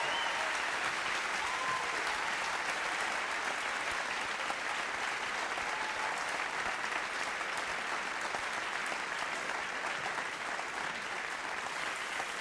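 Large theatre audience applauding steadily, easing off slightly toward the end.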